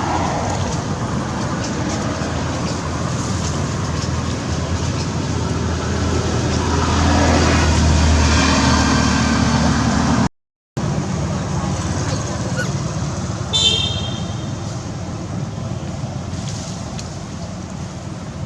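Road traffic running steadily, with a vehicle's low rumble swelling from about six seconds in. The sound drops out for a moment about ten seconds in, and a short high-pitched beep sounds near fourteen seconds.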